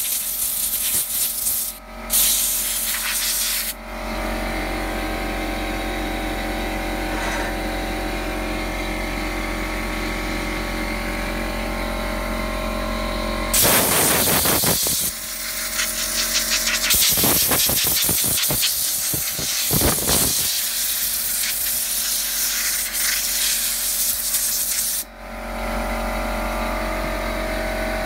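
Compressed air from a blow-gun nozzle hissing across the aluminium heatsinks of an AntMiner S9 hash board to blow out dust, in several blasts a second or more long. Between blasts an air compressor hums steadily.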